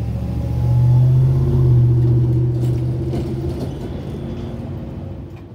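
An engine running with a steady low hum, swelling to a peak a second or two in and then fading away, with some rattling in the middle.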